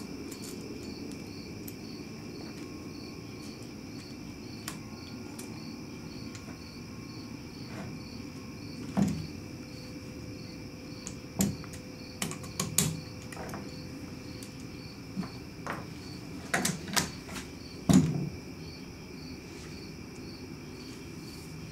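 Scattered clicks and knocks of plastic and metal parts as a trigger assembly is fitted by hand into a DeWALT D51256 16-gauge finish nailer, a dozen or so in all. A steady low hum and a faint high whine run underneath.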